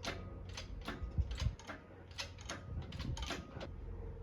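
Sharp clicks repeating about two to three times a second, unevenly spaced, over a low steady rumble.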